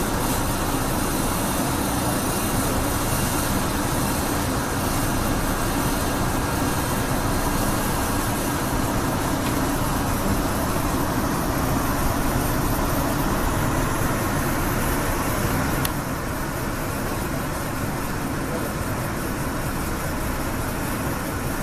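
Amtrak passenger train running on the rail, a steady rumble and rush of wheel and track noise heard inside the last car. About sixteen seconds in there is a click, and the noise drops a little and turns duller.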